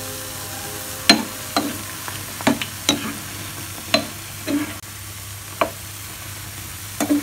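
Oil sizzling steadily as luqaimat dough balls deep-fry in a pan, with a utensil knocking against the pan about eight times as they are stirred and turned.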